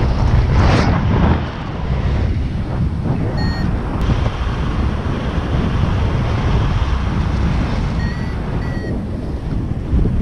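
Airflow buffeting the microphone during paragliding flight, a steady low rush. A flight variometer gives three short high beeps over it: one about three and a half seconds in, and two close together near the end.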